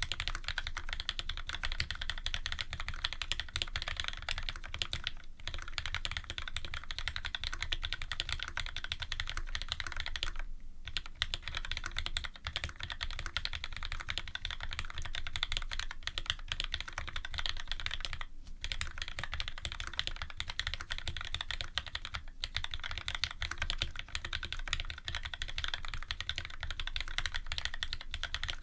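Continuous typing on a Special Dolphin custom mechanical keyboard with lubed Cherry Retooled Black linear switches (Tx films, Krytox 205), an aluminium plate and GMK keycaps: a steady stream of keystrokes with brief pauses about five, ten, eighteen and twenty-two seconds in.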